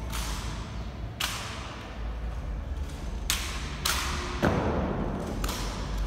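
Rifle drill by a ceremonial guard: six sharp slaps and clacks at uneven intervals as the rifles are struck and caught, each echoing in a large stone hall. The loudest, about four and a half seconds in, has a deeper thud.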